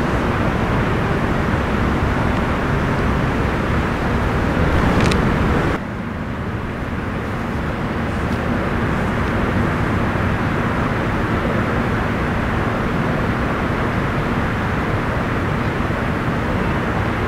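Steady outdoor rumble and hiss with no clear single source. It drops suddenly about six seconds in, then slowly builds back up.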